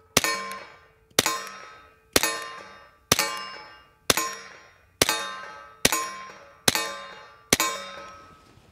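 Nine suppressed shots from an HK Mark 23 Mod 0 .45 ACP pistol with a Knight's Armament suppressor, fired at a steady pace of about one a second. Each shot is a sharp crack followed by a ringing that fades within about a second.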